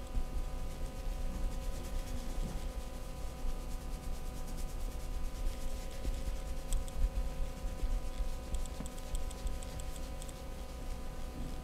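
Hands rubbing and kneading skin during a massage, a continuous friction sound over a steady background hum, with short runs of quick light clicks about two-thirds of the way through.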